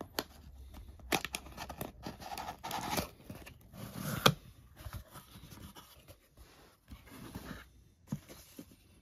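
A paper sticker seal being picked at and torn off a cardboard box, then the cardboard flaps being pulled open: scraping, tearing and crackling, with one sharp loud snap about four seconds in. Quieter handling of the box follows.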